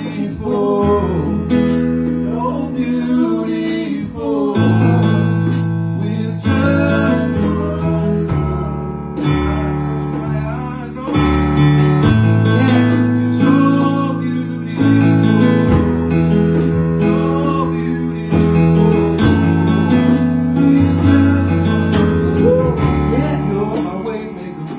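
Live gospel worship music: keyboard chords held over deep bass notes, with a drum kit and cymbal strikes, and a singer's voice rising and falling above the band.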